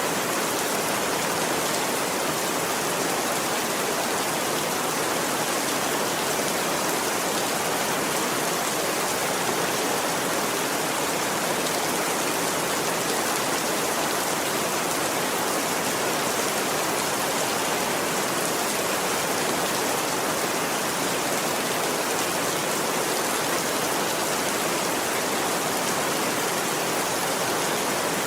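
Steady rain: an even, unbroken hiss with no separate drops or thunder standing out.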